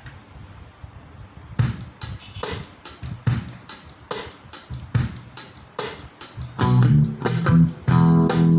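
Pop or rock music played through a homemade class A MOSFET amplifier and its speakers. A drum beat starts about a second and a half in, and bass and guitar join near the end.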